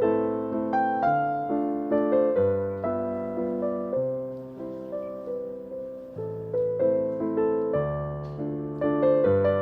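Background piano music: a slow, gentle tune of struck notes and chords that ring and fade.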